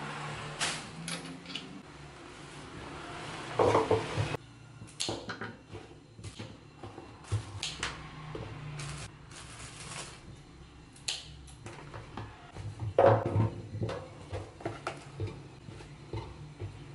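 Kitchen scissors snipping chilli stems, with a plastic food container and paper towel being handled on a wooden board: a string of short sharp clicks and snips, and two louder rustling bursts about four and thirteen seconds in.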